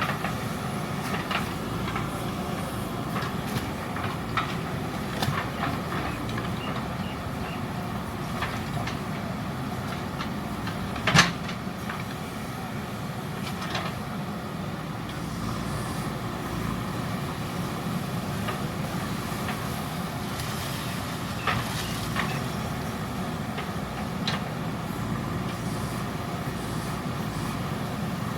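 JCB 3DX backhoe loader's diesel engine running steadily while it works, with scattered metallic clanks and knocks. The loudest is a sharp clank about eleven seconds in.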